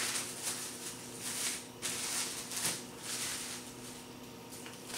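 Thin plastic bag crinkling and rustling in the hands as it is peeled off a block of cheese: a string of short rustles that thin out toward the end.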